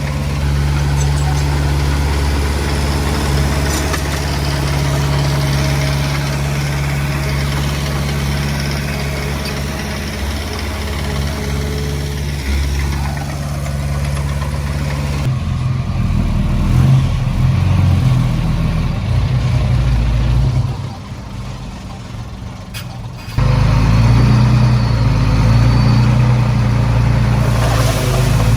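Heavy diesel machinery engine running steadily, the sound changing abruptly twice, about 15 and 23 seconds in, to a different engine note. A quieter stretch comes just before the second change.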